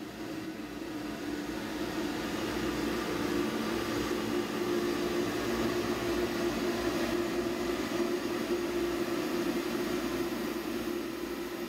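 Steady mechanical hum with a hiss beneath it, growing a little louder over the first few seconds, then holding even.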